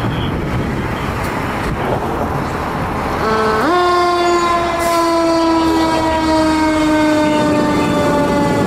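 Heavy rescue fire truck pulling out with its diesel engine running. About three seconds in comes a brief horn blip, then a long air horn blast held for about five seconds, its pitch sagging slightly.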